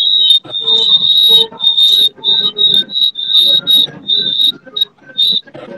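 Wordless vocal sounds from a man's voice in short choppy bursts, with a piercing high whistle-like tone riding on most of them.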